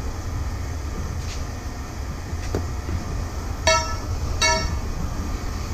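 Steady low vehicle engine rumble, with two short high beeps in quick succession a little past the middle.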